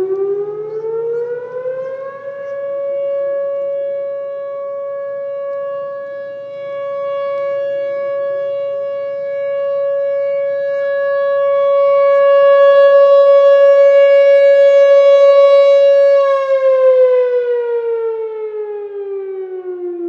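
Whelen WPS-4004 electronic outdoor warning siren sounding its steady alert tone. The pitch climbs over the first two seconds, holds one steady tone, then winds down over the last four seconds.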